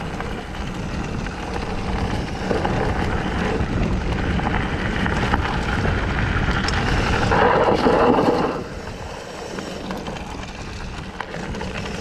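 Wind rushing over the camera microphone and knobby tyres rolling over a dirt forest trail on a fast electric mountain bike descent. A louder rush comes about seven to eight and a half seconds in.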